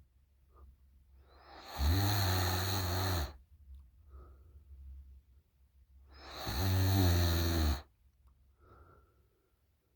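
A woman snoring loudly through an open mouth in deep sleep: two loud, buzzing snores, each about a second and a half long and about four and a half seconds apart, with soft breaths between them.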